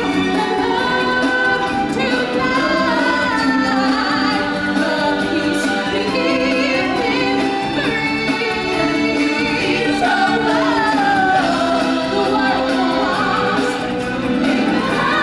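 Sung music from a live musical show: a group of singers in chorus with instrumental backing, carrying on without a break.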